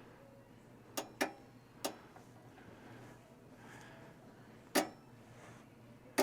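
Five short, sharp clicks and taps, scattered irregularly, from hands working on the fog-light wiring, over a faint low hum.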